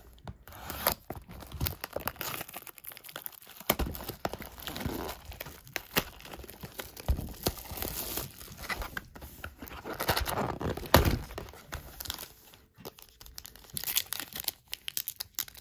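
Plastic shrink wrap being torn and crumpled off a trading-card box, irregular crinkling and crackling with small clicks of cardboard being handled and a louder thump partway through. Near the end a foil card pack crinkles as it is pulled open.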